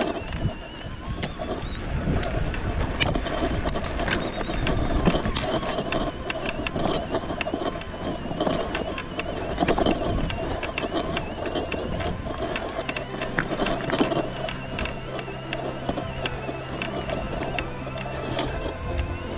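Electric mountain bike ridden over a rough dirt track: its Bafang 250 W mid-drive motor whines with a pitch that rises and falls, over a steady rumble of tyres on gravel and frequent clicks and knocks as the bike rattles over bumps.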